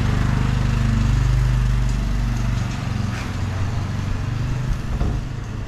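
A motor vehicle's engine running close by with a steady low hum, fading away about two and a half seconds in and leaving the noise of street traffic.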